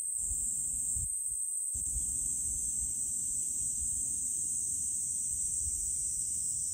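Steady high-pitched drone of insects in the summer trees, with a low, uneven rumble of wind on the microphone.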